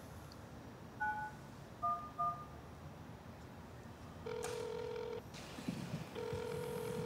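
Phone keypad tones dialling 9-1-1: three short beeps, one about a second in and two close together a second later. Then the ringing tone of the outgoing emergency call through the handset, a short ring and then a longer one.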